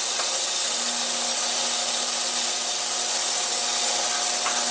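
Ultrasonic cleaner running: a steady hiss with a faint, even hum. A couple of faint clicks sound over it.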